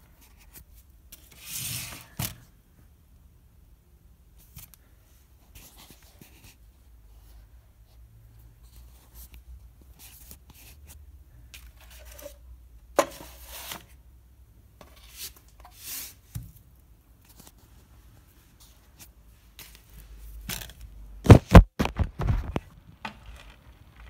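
Handling noise from an Olympia SM2 portable typewriter: scattered scrapes, rustles and single mechanical clicks, then a quick run of about half a dozen sharp clacks near the end, the loudest sound.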